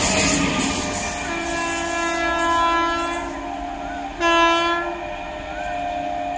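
An EMU local train's running noise fades in the first second. Then an electric train's horn sounds twice: a steady blast of about two seconds, then a shorter, louder blast a little after four seconds in.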